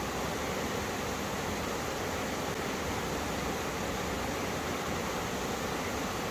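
Mountain streams rushing over rocks where two valley streams join: a steady, unbroken rush of water.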